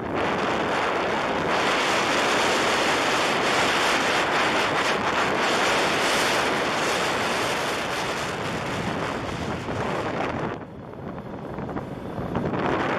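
Wind rushing over the microphone of a camera on a moving ATV, mixed with the machine's running and rolling noise on a gravel road; the rush eases for about two seconds near the end, then comes back.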